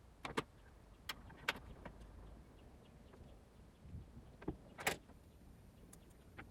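Scattered small clicks and taps of tools and small parts being handled while a smartphone is taken apart, with the sharpest tap about five seconds in.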